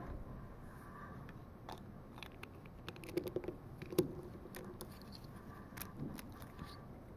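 Black Lego bricks being handled and pressed together: scattered light plastic clicks, with a short cluster about three seconds in and the sharpest click at about four seconds.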